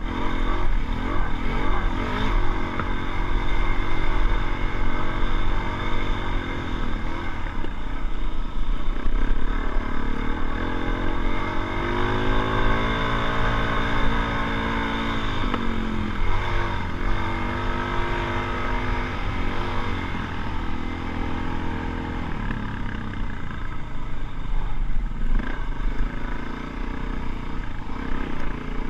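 Motorcycle engine running under way, its pitch shifting with the throttle and dropping sharply about halfway through.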